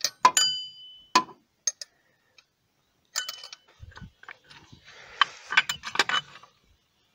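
Sharp metallic clinks of a 14 mm box-end wrench on the engine's idler pulley bolt, several in the first two seconds, each with a short ring. From about three seconds in, a run of clicks and scraping rattles as the loosened bolt and idler pulley are worked free by hand.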